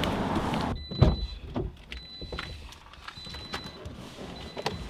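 Steady wind noise on the microphone cuts off abruptly under a second in. Then comes a thump, followed by scattered knocks and rustles in a quiet car cabin, with a faint high tone sounding on and off.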